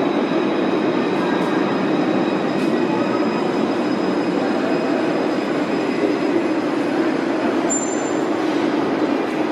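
Alstom Citadis 302 light-rail tram pulling into an underground station platform: a steady rumble of steel wheels on rail with faint high steady tones above it, and a brief high squeal about eight seconds in.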